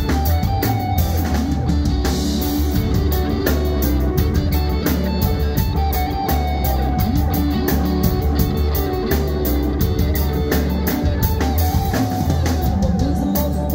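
Live band playing at full volume: electric guitars over a drum kit's steady beat, with keyboards.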